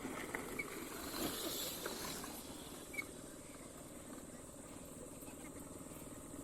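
Faint steady background noise with a low, fast pulsing, broken by two brief high chirps, about half a second and three seconds in.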